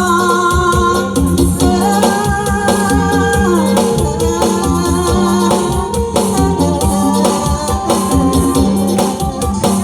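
Live Thai band music with a steady drum-kit beat and strong bass under long, held melodic lines that slide from note to note, with singing.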